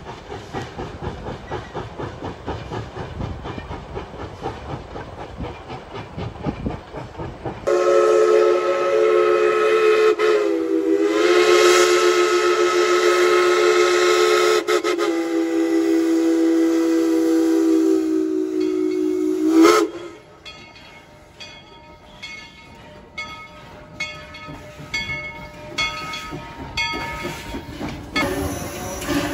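Steam locomotive running with steady rhythmic chuffs, then a long steam whistle blast of several notes sounding together, about twelve seconds long, that dips briefly in pitch early on and cuts off sharply. After it comes a quieter run of short, uneven chuffs and knocks from the locomotive.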